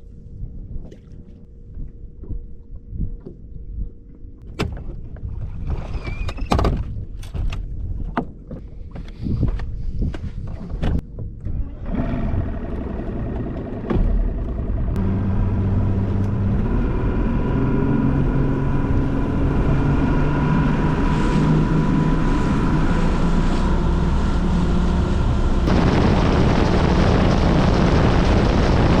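Knocks and rattles, then a boat's outboard motor comes up to speed about twelve seconds in and runs steadily and loudly. Near the end a louder rush of wind and water joins the engine as the boat runs fast.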